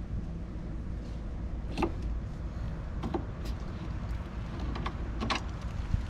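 A few small, sharp metallic clicks and taps as a brass Schrader core removal tool is unscrewed and lifted off a heat pump's refrigerant service port, over a steady low rumble.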